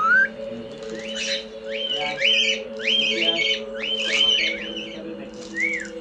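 Cockatiels whistling: a run of short whistled notes, each rising and then held, about two a second, followed by one rising-and-falling whistle near the end.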